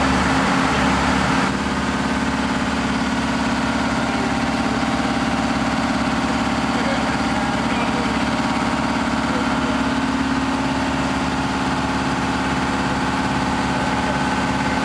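Fire truck's pump engine running steadily under load, with the hiss of water jetting from a ground monitor nozzle through hose lines.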